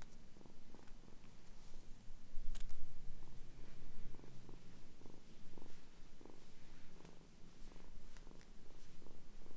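Kitten purring close to the microphone, a steady low rumble, with a brief sharp click about two and a half seconds in.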